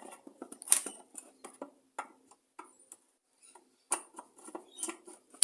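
Scattered small clicks and taps of a screwdriver and hand-held parts as a Briggs & Stratton tank-mounted carburettor is worked off its fuel tank. The sharpest knocks come about a second in, about four seconds in, and at the end.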